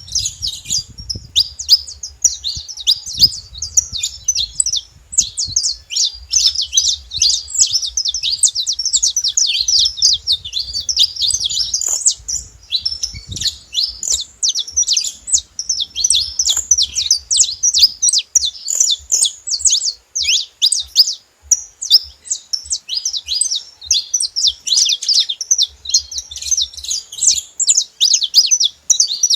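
Saffron finch singing: long runs of rapid, high chirping phrases with only brief pauses.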